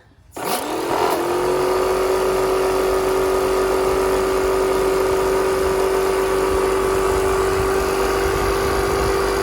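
Wagner Control Pro 130 Power Tank airless paint sprayer's pump switched on. Its hum rises in pitch over about a second, then runs steadily, flushing stain out of the hose while the sprayer is cleaned.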